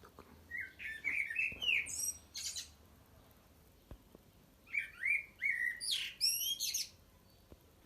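Common blackbird singing: two song phrases, each a few mellow warbled notes followed by a high, thin twitter, the first about half a second in and the second about two seconds later.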